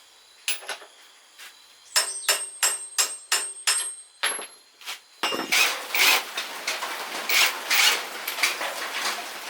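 A series of hammer strikes on metal, each with a short ringing note, coming faster, about three a second, from about two seconds in. From about five seconds in they give way to a steady hissing rush with uneven surges.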